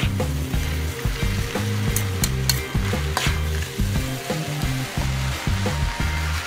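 Egg noodles with beef and greens stir-frying in a metal wok: a steady sizzle, with a metal spatula scraping and clinking against the wok as the noodles are tossed. A low hum runs underneath.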